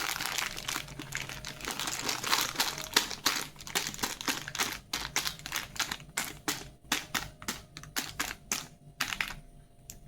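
Plastic candy wrapper crinkling as it is handled. It is dense at first, then breaks into separate sharp crackles, several a second, that thin out near the end.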